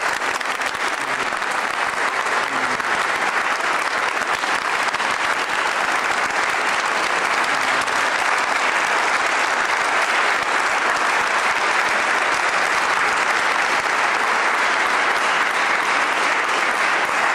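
Large audience applauding steadily: dense clapping at an even level.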